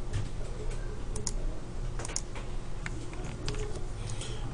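Scattered clicks of a computer keyboard and mouse, a few keystrokes at a time, over a steady low hum.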